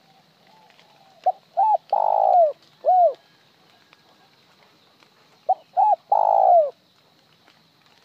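Spotted dove cooing twice. The first call is a short note, an arched note and a long loud falling note, then after a short pause a separate final note (the 'hậu'). The second call stops after the three notes with no final note.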